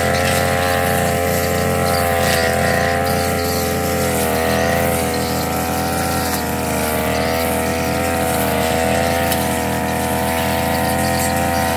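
Backpack brush cutter's small petrol engine running at high speed while cutting grass, its pitch dipping slightly a few times.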